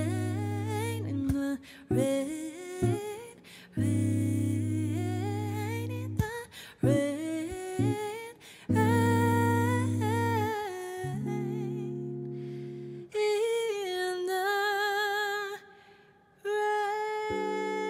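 A woman sings long, sliding wordless vocal runs over a clean Fender Telecaster electric guitar. The guitar strikes slow chords every few seconds and lets them ring.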